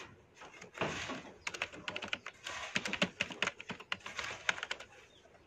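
Typing on a computer keyboard: a quick run of key clicks that starts about a second in and stops shortly before the end.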